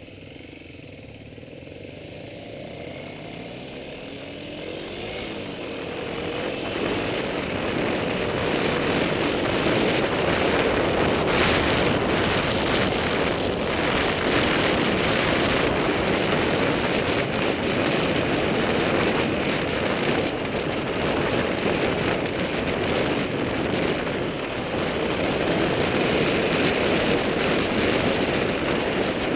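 Dual-sport motorcycle riding a gravel road: the engine pulls away, rising in pitch over the first few seconds, then a steady loud rush of wind and tyre noise on the bike-mounted microphone covers it.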